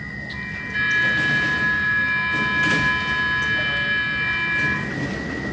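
Stockholm metro train standing at the platform, giving off a steady, high-pitched whine of several tones at once. It sets in just after the start, swells within the first second and stops about five seconds in, over a low rumble and the scuffing of passengers' footsteps.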